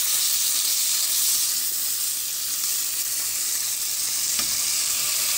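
Steak sizzling in a hot cast iron skillet, a steady hiss.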